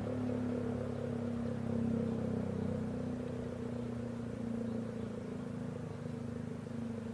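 ACA P-15 outdoor warning siren sounding a steady tone, its volume swelling slightly about two seconds in and then slowly easing off.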